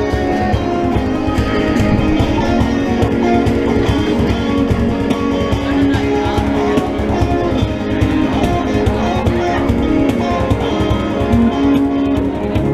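Guitar music: a guitar strummed and plucked, with bass notes under it.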